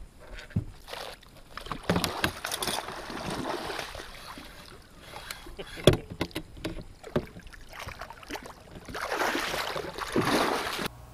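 Water splashing as a northern pike is scooped into a large landing net beside a fishing boat, with sharp knocks against the boat; the loudest knock comes about six seconds in.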